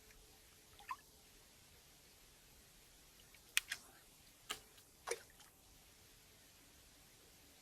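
A few separate small drips or plops of water, some with a quick falling pitch, against near silence.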